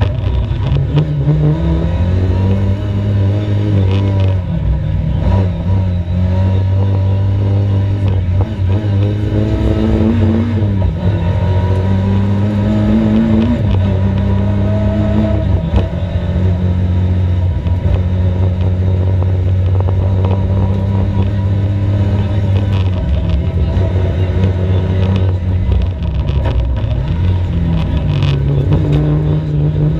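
Competition car engine under hard acceleration, its pitch climbing and dropping back several times as it shifts up through the gears. It holds a steady pitch through the middle, then eases off and picks up again near the end.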